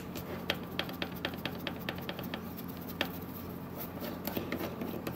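Light, irregular metallic clicks and ticks of a screwdriver and small screws being worked out of an airsoft electric gun's version 3 gearbox shell during disassembly.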